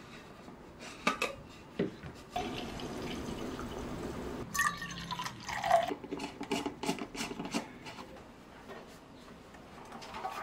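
Brewed coffee poured from a glass carafe into a travel tumbler, a steady liquid pour lasting a few seconds, between a few light clinks of the tumbler and its lid. After the pour comes a quick run of small clicks as the tumbler's screw-on lid is twisted shut.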